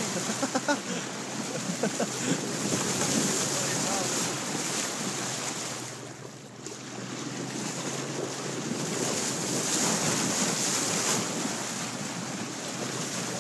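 Wind buffeting the microphone over the sound of sea water lapping and sloshing alongside a boat, with a steady low hum underneath. The wind noise drops away briefly about halfway through.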